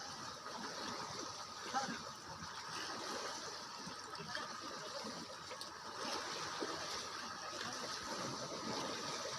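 Steady, gentle water sounds: lapping and trickling at the water's edge.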